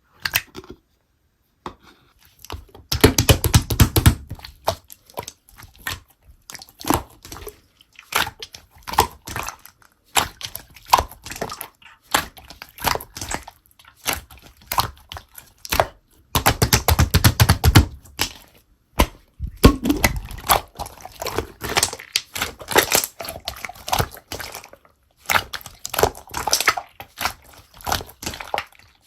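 Slime being squeezed and worked by hand, giving a run of quick sticky clicks and crackles, with two louder, denser bursts of squishing, about three seconds in and again about sixteen seconds in.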